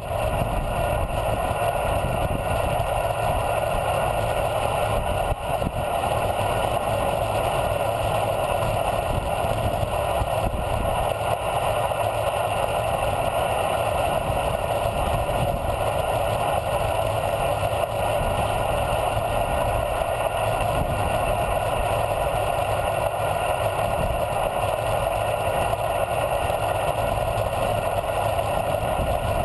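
Steady wind rush buffeting the microphone of a camera mounted on a road bicycle's handlebars as the bike descends a paved road at speed.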